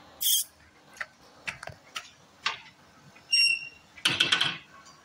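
A string of sharp clicks and taps, with a short metallic ringing tone about three and a half seconds in and a quick flurry of clicks right after it.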